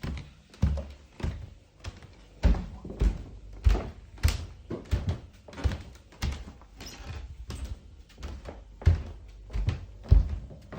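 Footsteps at a walking pace of roughly two steps a second, each step a dull low thud.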